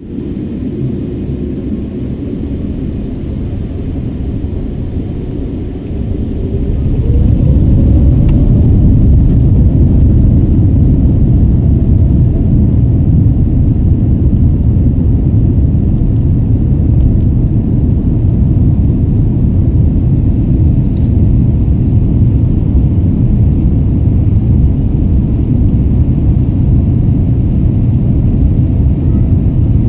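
Airliner takeoff: the jet engines spool up with a short rising whine about six seconds in, then a loud, steady, deep rumble of the engines at takeoff thrust.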